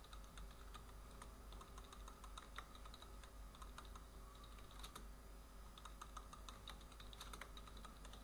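Computer keyboard being typed on: faint, irregular keystroke clicks over a low steady hum.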